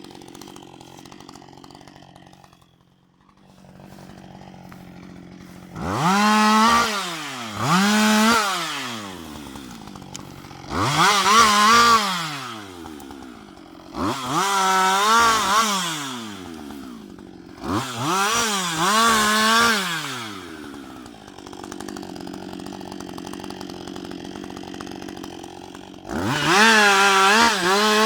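Husqvarna 560 XP two-stroke chainsaw idling, then opened to full throttle about six times. Each burst lasts one to two seconds with the pitch wavering as the chain cuts wood, and the engine winds back down to idle between bursts.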